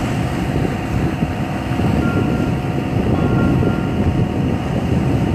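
Steady, loud wind noise buffeting the microphone aboard a sailboat under way.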